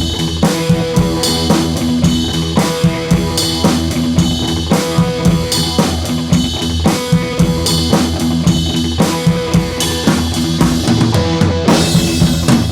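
Background music with a steady drum-kit beat over sustained instrumental notes.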